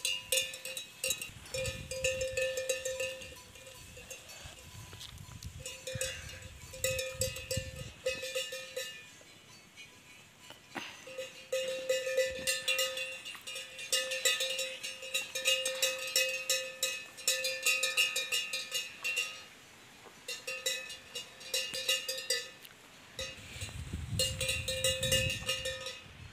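Bells hung on grazing cattle and water buffalo clanking irregularly, a ringing clonk repeated over and over in bouts with short lulls. A low rumble comes and goes underneath at times.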